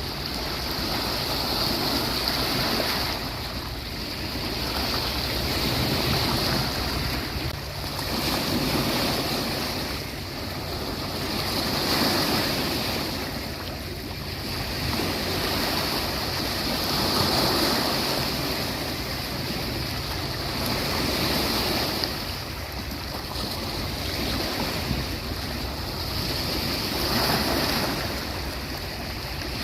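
Sea waves washing onto a beach, swelling and falling back every three to five seconds, over a steady high hiss.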